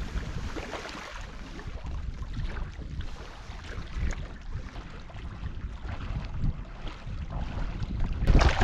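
Wind buffeting the microphone in a steady low rumble, with small waves lapping at the shoreline rocks. The rumble grows louder near the end.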